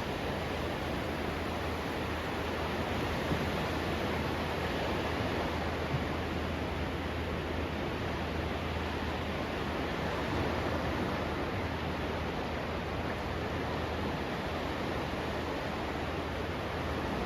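Steady rushing noise of sea surf and wind, even throughout with no distinct wave breaks.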